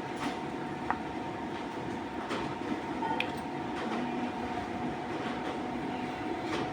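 Milking machine running with a steady mechanical hum and a thin, constant whine, and a few sharp clicks.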